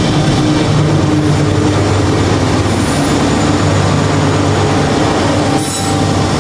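Several diesel locomotives, Southern Pacific units among them, passing close by: a steady low engine drone over the rumble of steel wheels on rail. A brief high hiss comes about five and a half seconds in.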